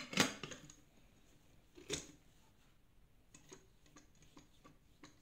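Sharp clicks and light ticks from the telescopic handle and its lever lock being adjusted on a Kehui T506 cable fault pinpointer: one click right at the start, another about two seconds in, then a few fainter ticks.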